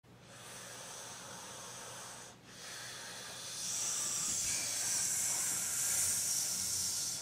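A man breathing slowly and deeply, with two long hissing breaths. There is a brief pause about two and a half seconds in, and the second breath is louder.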